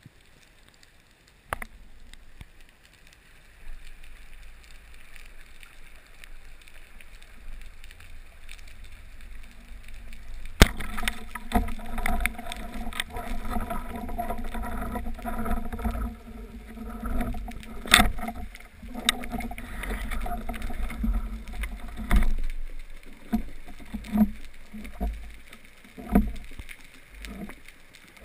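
Water noise around the microphone, quiet at first, turning into a busier churning and sloshing about ten seconds in. A few sharp knocks stand out, the loudest around the middle.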